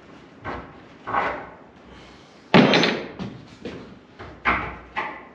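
Irregular wooden knocks and bangs, about seven in all, as a long board is worked into place in a door opening; the loudest comes about halfway through. Each knock rings briefly in the bare plywood-walled room.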